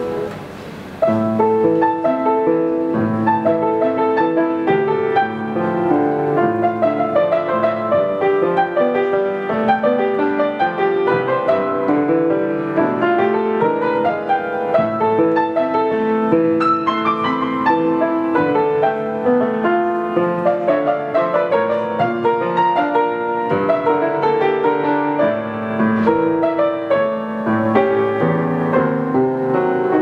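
Solo 19th-century Schröder grand piano playing a classical piece, with a brief drop in loudness just after the start before the playing picks up again.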